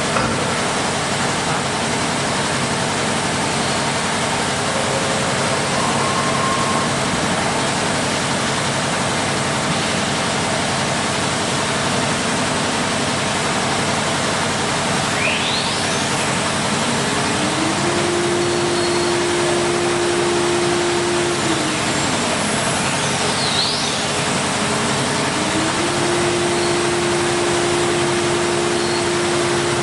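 Steady, loud running noise of a CNC wood router in operation. A motor tone climbs, holds and drops back twice in the second half, as a spindle or drive speeds up and slows down.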